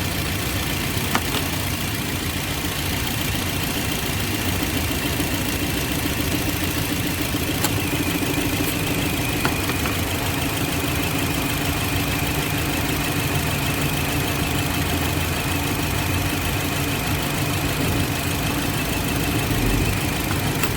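2007 Toyota Yaris four-cylinder petrol engine idling under AC load, hunting and misfiring; one of its four ignition coils is not sparking. A few faint clicks sound over the idle.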